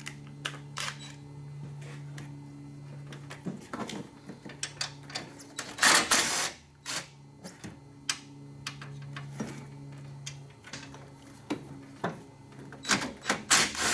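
Metal clinks, taps and knocks of hand tools and parts as a Super Duty pump is fitted and bolted up in an engine bay, with a louder rattling clatter about six seconds in and a quick run of knocks near the end, over a steady low hum.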